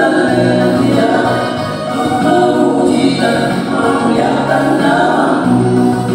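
Male vocal group singing an Indonesian gospel song, several voices holding sustained notes in harmony.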